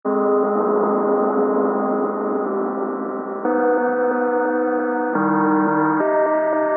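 Opening of a phonk track: held, ringing chords with no beat, moving to a new chord three times, about three and a half, five and six seconds in.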